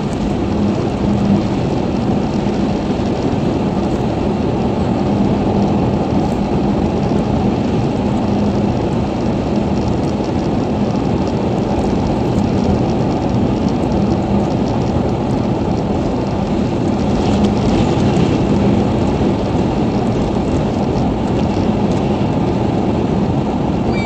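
Car driving at highway speed, heard from inside the cabin: a steady rumble of tyres on the road and engine, with a faint constant hum.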